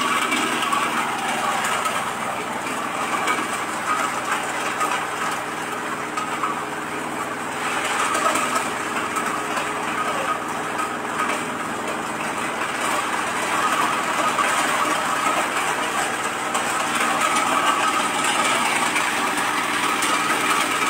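Single-cylinder 8 hp diesel engine running steadily under load, driving an areca nut cracking machine, with the clatter of nuts being cracked in the drum.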